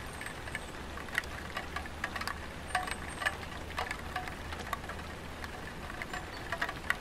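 Light rain falling on a tiled roof: scattered single drops tapping at irregular intervals, some with a short pitched tink, over a steady hiss.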